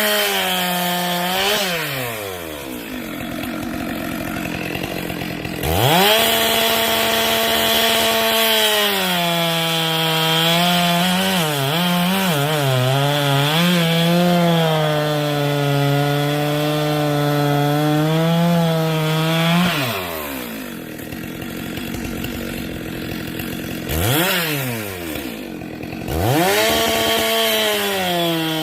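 Two-stroke chainsaw revving and cutting firewood, its engine pitch wavering and dipping under load during a long cut. It falls back toward idle about 20 seconds in, then revs up again into another cut near the end.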